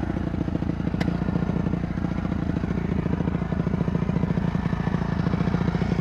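Dirt bike engine idling steadily, with a single sharp click about a second in.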